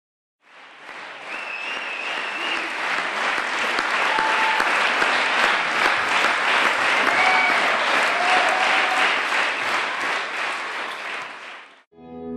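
Theatre audience applauding the cast's bow at a curtain call. The clapping fades in, holds steady, and is cut off near the end, where music begins.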